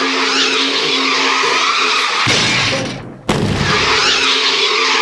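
A plastic object pushed and dragged across a tiled floor, giving a continuous scraping rush with dull bumps a little past the middle; the sound breaks off for a moment about three seconds in.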